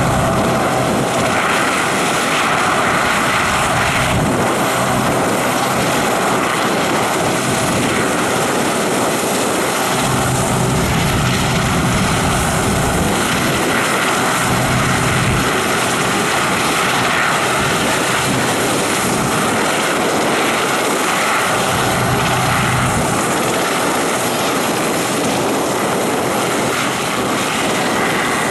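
Westland Sea King Mk5 helicopter running on the ground with rotors turning: the steady whine of its twin Rolls-Royce Gnome turboshaft engines over the throb of the main rotor, while it taxis.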